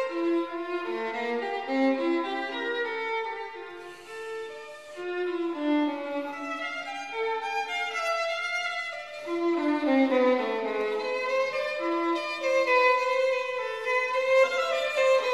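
Background music led by a bowed violin playing a flowing melody of sustained notes.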